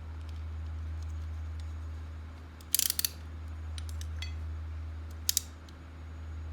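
Slime being kneaded and folded by hand, giving a quick burst of crackly popping clicks about three seconds in and another about five seconds in, with faint ticks between, over a steady low hum.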